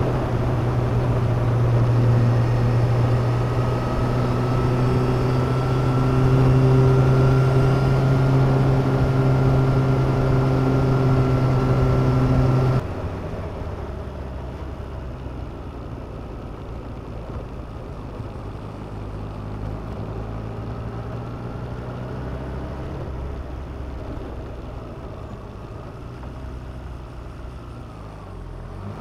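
Motorcycle engine running at a steady cruise with wind and road noise, heard from a camera mounted on the bike; a steady hum holds for about thirteen seconds, then cuts off suddenly to a quieter, lower engine and tyre rumble.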